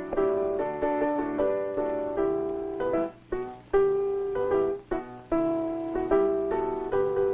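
Piano music: a melody of struck notes that fade after each strike, over changing chords, with brief breaks about three and five seconds in.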